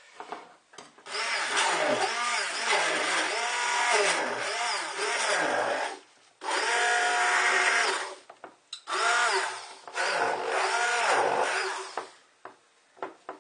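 Hand-held stick blender running in a plastic beaker of ice and ice cream, in four bursts with short pauses between. Its motor pitch keeps sagging and recovering as it loads up on the ice.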